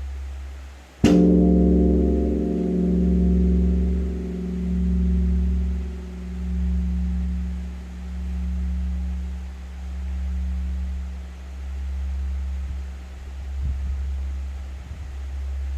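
Large Korean bronze temple bell (beomjong) struck once about a second in with its wooden striking log, ringing on and slowly dying away over a deep hum that swells and fades about every two seconds. It is tolled to call the dawn service.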